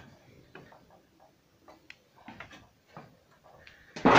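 Scattered light steps and small knocks while going down into a garage pit. About four seconds in comes a loud metallic clang that keeps ringing and fades over about a second.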